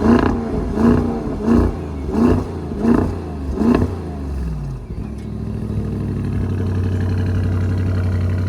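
2024 Audi SQ8's twin-turbo 4.0-litre V8 revved in about six quick blips, then settling to a steady idle about five seconds in.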